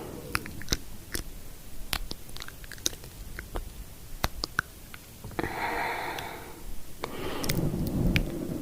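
Soft mouth sounds close to the microphone: scattered wet clicks and lip smacks. A soft hiss of about a second and a half comes just past the middle.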